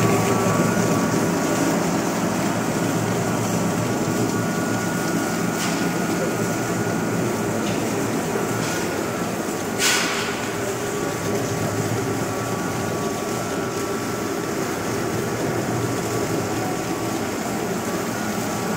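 DGP200 soybean extruder running under load while extruding soya: a steady dense mechanical drone with a faint whine. A brief sharp noise cuts through about ten seconds in.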